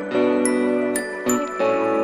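Background music: a light tune of held notes with high bell-like tinkles over it.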